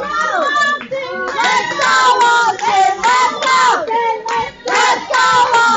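Wrestling crowd with high, children's voices yelling and chanting in pitched, sing-song calls over rhythmic hand clapping.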